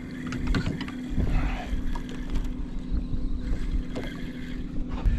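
Wind buffeting the microphone on a small open boat, over a steady low hum, with a few short clicks and knocks from fishing rods and reels being handled.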